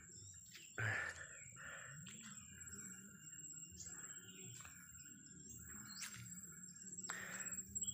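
Small birds chirping and calling in scrubland over a steady high-pitched whine, with a knock about a second in.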